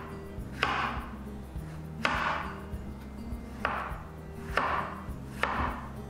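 Chef's knife slicing peeled raw potatoes into thick rounds on a wooden cutting board: five cuts, each a sharp knock of the blade with a short swish, about a second or so apart, over soft background music.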